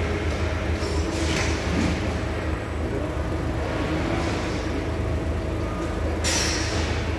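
Steady low hum of a standing forklift, heard from its cab, with two short hisses, one about a second in and one near the end.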